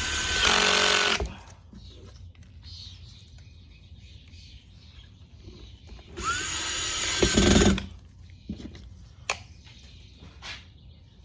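Power screwdriver running as it drives the screws back into the steering wheel's cover: one run ending about a second in, then a second run of about a second and a half that winds up to a steady whine. A few light clicks follow.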